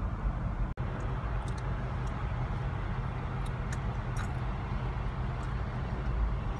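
Steady low rumble of a car's engine and road noise heard from inside the cabin in slow traffic, with a momentary dropout a little under a second in.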